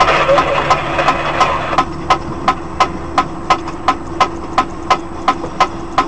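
Truck engine idling under an even, fast ticking of about three clicks a second. A passing truck adds a rush of noise in the first two seconds.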